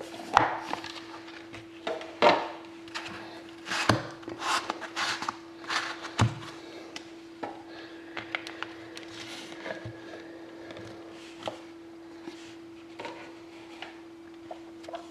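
Hands handling trading cards and their packaging: irregular clicks, taps and rubbing of card stock and wrapper, busiest in the first half. A steady low electrical hum runs underneath.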